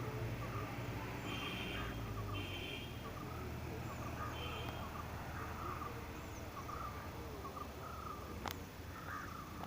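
Outdoor ambience: birds chirping in short calls repeated every second or so over a steady low rumble, with a single sharp click near the end.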